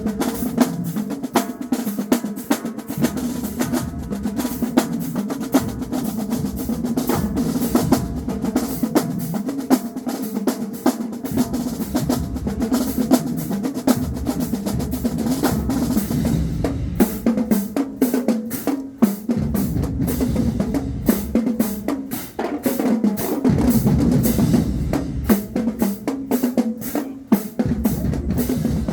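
A marching band drumline playing a marching cadence: rapid snare drum patterns with bass drums. The bass drums drop out for a second or two several times.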